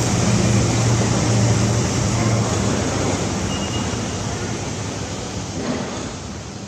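Steady road traffic noise with a low engine hum, fading out over the last few seconds.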